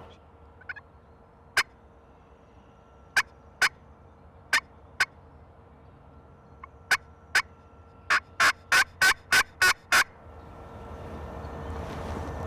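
Hunter's turkey call imitating a hen: short, sharp single notes and pairs spaced a second or so apart, then a quick run of about seven notes near the end, a cutting-and-yelping sequence meant to draw a gobbling tom.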